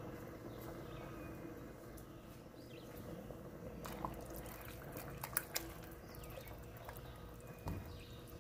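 Rice being stirred in water in a stainless steel pot with a silicone spatula: faint watery swishing, with a few light clicks around the middle.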